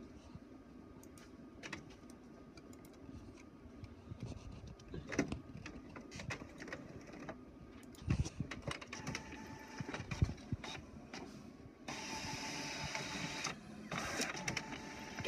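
All-in-one printer running a page: scattered clicks at first, busier mechanical clicks and knocks of the paper feed from about halfway, and a steady whir for about a second and a half near the end as the sheet is fed out.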